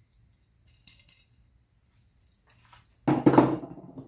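A few faint clicks of metal parts being handled, then about three seconds in a sudden loud clunk and rattle of a metal part against the wooden workbench, dying away within about half a second.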